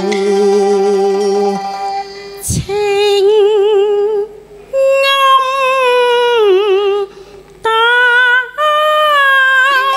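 Cantonese opera singing: a woman's voice holding long notes with wide vibrato and sliding pitch, with Chinese instrumental accompaniment, breaking off twice briefly for breath.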